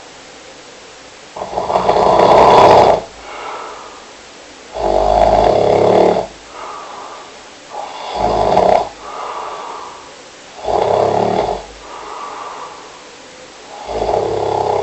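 Loud snoring in a slow, regular rhythm, about one snore every three seconds. Each loud snore is followed by a shorter, softer one.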